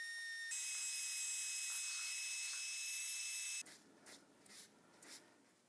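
High-pitched whine of a handheld rotary tool spinning a small abrasive wheel as it grinds surface oxides and a small V-groove along the crack in a bronze cymbal. The whine steps up in pitch about half a second in and cuts off sharply after about three and a half seconds. Faint rubbing strokes of a cleaning wipe on the cymbal follow.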